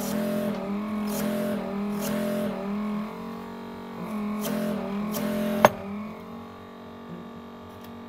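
Vacuum suction pump of a heated phone-screen separator running, a steady motor hum that wavers in regular pulses about twice a second while it holds the back glass down. It eases off near the end. A single sharp click comes about five and a half seconds in.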